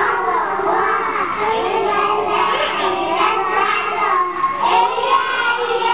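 A group of young children singing together, several voices at once.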